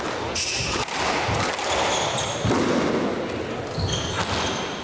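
Squash rally: the ball smacking off racquets and the court walls, with sneakers squeaking on the hardwood floor several times as the players turn and lunge.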